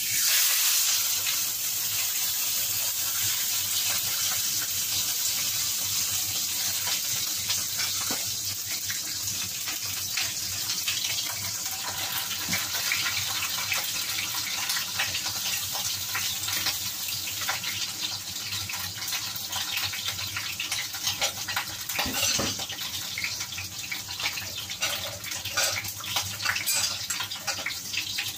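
Pork cheek sizzling in a hot frying pan: a steady frying hiss that starts suddenly as the meat goes in, with scattered pops and crackles that come more often near the end.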